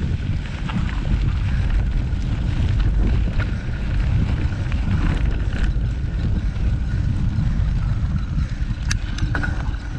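Heavy wind buffeting on the microphone, a dense steady rumble, with scattered sharp clicks and rattles; the loudest click comes near the end.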